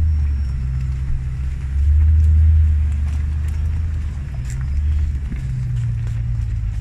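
Low, steady rumble of car engines running slowly, with a few faint clicks above it.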